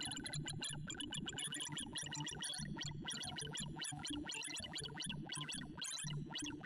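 ArrayV sorting visualiser's synthesised tones during a Gnome Sort of 128 numbers: a rapid, unbroken stream of short soft beeps whose pitch follows the values being compared and swapped.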